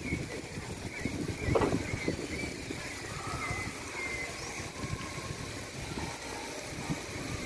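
Urban park ambience: a steady low rumble of city traffic, swelling briefly about a second and a half in, with small birds chirping in short, high-pitched calls.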